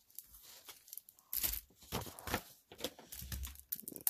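Card-deck packaging being handled and cleared away, crinkling and tearing in several short bursts with small clicks.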